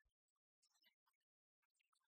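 Near silence, with a few faint scattered clicks.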